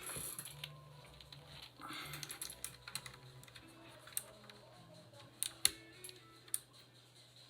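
Typing on an Anne Pro 2 mechanical keyboard with clicky Kailh Box White switches and PBT keycaps: irregular keystroke clicks, a few sharper ones between about four and six and a half seconds in.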